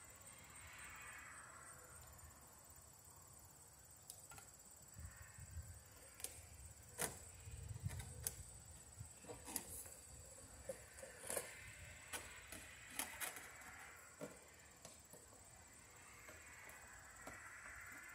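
Faint scattered clicks and small knocks of lineman's pliers and a wire nut working the copper ground wires in an outdoor outlet box, bunched in the middle, over a steady faint high hiss.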